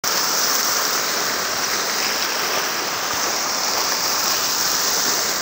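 Fountain jets splashing into a stone pool: a steady rush of falling water.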